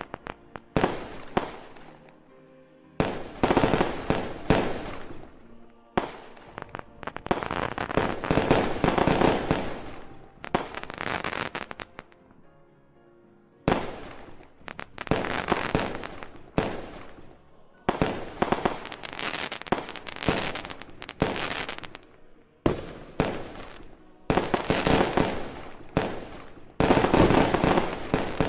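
Aerial firework shells bursting in quick succession: sharp bangs that trail off in echoes, coming in clusters every few seconds, with a short lull about twelve seconds in.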